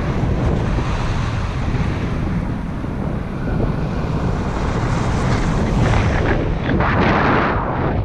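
Airflow of a paraglider in flight rushing and buffeting over the pilot's camera microphone, a steady heavy wind noise that swells louder about seven seconds in.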